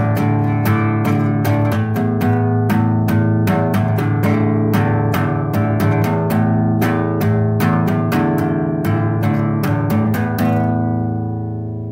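Instrumental music: a guitar plucking a quick, even run of notes, about four a second, over sustained low notes. A little before the end the plucking stops and the last notes ring on, fading.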